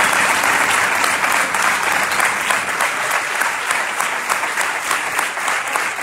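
A large indoor audience applauding steadily: dense, sustained clapping from a full hall.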